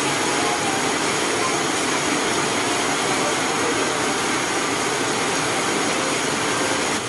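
Motorcycle engine running steadily through an aftermarket FMF Powercore 4 exhaust pipe, heard close up as an even, loud exhaust noise.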